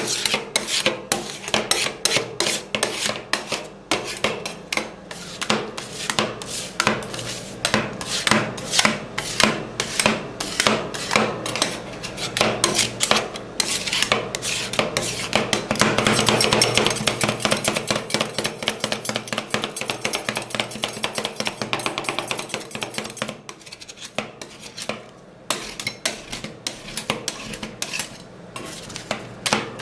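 Metal spatulas rapidly tapping and scraping on a cold steel plate as watermelon and cream are chopped and worked for rolled ice cream, with a brief lull a little past the middle.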